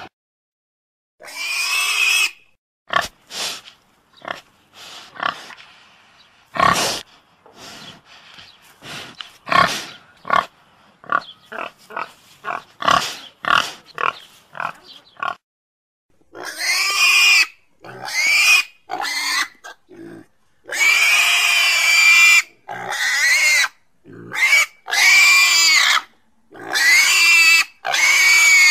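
Domestic pig calling. Short grunts come one after another through the first half, then from about halfway on a series of loud, long pitched squeals of about a second each, with brief gaps between them.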